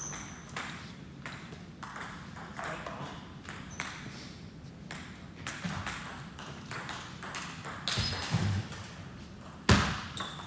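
Table tennis ball clicking off the bats and bouncing on the table, a series of sharp, irregular ticks, with one loud hit near the end.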